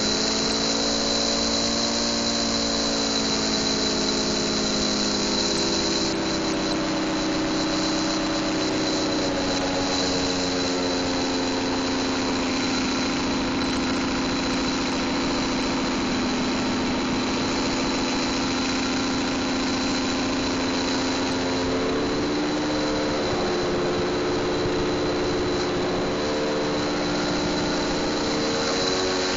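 Gas-engine-driven Federal Signal 3T22 siren running with its chopper spinning, sounding a loud chord of several tones over the engine. The pitch settles and sags slowly at first, then climbs again about two-thirds of the way through as the throttle is worked by hand.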